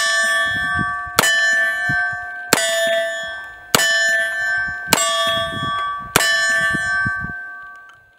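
Six shots from a Webley-Fosbery automatic revolver, evenly spaced about a second and a quarter apart. Each one is followed by a long metallic ringing clang at the same pitch that dies away before the next shot. The sound fades out after the last ring.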